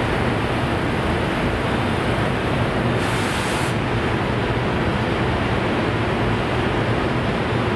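EF510 electric locomotive pulling a container freight train away slowly from a standstill: a steady, loud rushing noise with a low hum under it, and a brief hiss about three seconds in.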